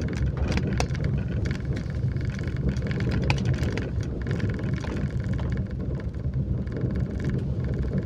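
Car interior noise while driving slowly over a rough dirt road: a steady low rumble of engine and tyres, with scattered small clicks and rattles.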